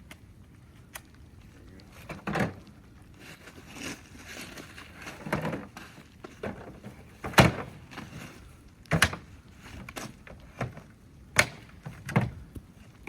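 Several separate knocks and clunks at irregular intervals, like hard objects being bumped or set down. The loudest comes about halfway through.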